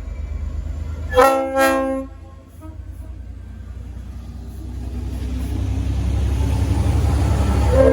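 Leslie RS5T five-chime horn on a V/Line N class diesel locomotive sounding two short blasts a little over a second in. Then the low rumble of the locomotive grows steadily louder, and another horn blast starts right at the end.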